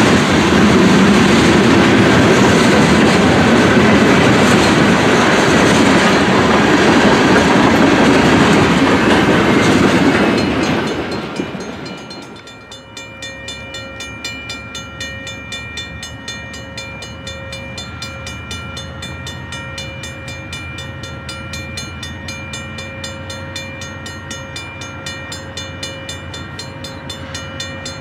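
Freight train of covered hopper cars passing close by, steel wheels rumbling and clicking over the rail joints. About 11 seconds in, this gives way to a much quieter, steady ringing of several fixed tones with a fast, even beat that carries on to the end.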